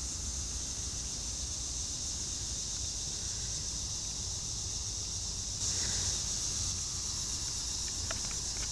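Steady high-pitched chorus of evening insects, growing louder about five and a half seconds in, over a low rumble, with a few faint ticks near the end.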